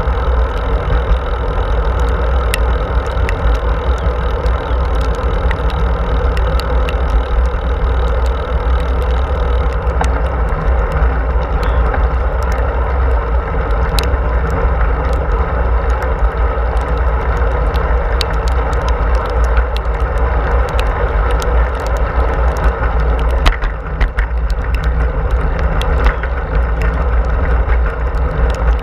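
Steady low wind rumble buffeting a bike-mounted camera's microphone while riding a bicycle on a paved path, with tyre hiss on the asphalt and scattered light clicks and rattles throughout.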